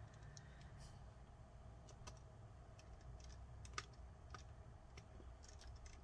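Faint, scattered small clicks and taps of a thin metal cable cover and a precision screwdriver being handled while the cover is fitted over a laptop's logic board, with one sharper click a little past the middle; otherwise near silence.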